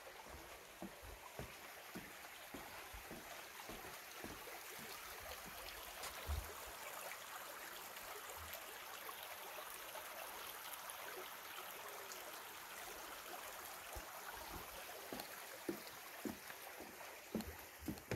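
Water of a small stream rushing steadily, swelling in the middle and easing off again, with soft footsteps on a path near the start and the end.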